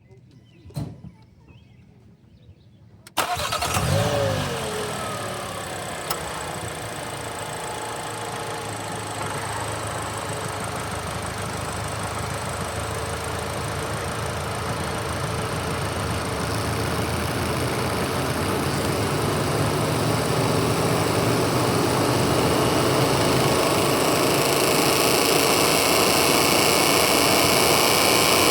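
Volkswagen Golf Mk8 GTI's 2.0-litre turbocharged four-cylinder starting about three seconds in, flaring briefly and settling to a steady idle, heard through the front grille. A little past halfway a buzzing from the radiator fan area sets in and grows steadily louder. The owner suspects tree leaves caught in the fans.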